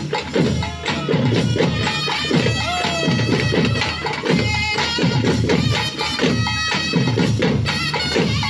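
Live Tamil folk music played over loudspeakers: drums keep a fast, steady beat while a wind instrument carries the melody.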